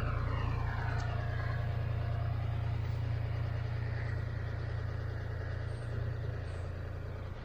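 John Deere 5055D tractor's diesel engine idling steadily, with a faint whine falling in pitch over the first two seconds or so.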